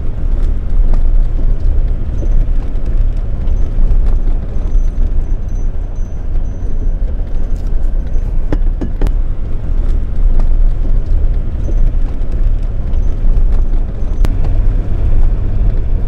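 Puch G four-wheel-drive camper van climbing a steep gravel track, heard from inside the cab: a steady low engine and tyre rumble, with a few sharp knocks from the rough track.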